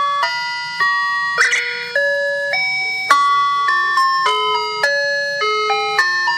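Electronic alert alarm: a synthesized, chime-like melody of stepped tones, several notes at once, changing every fraction of a second. It loops about every five seconds, with a short noisy hit at the start of each pass.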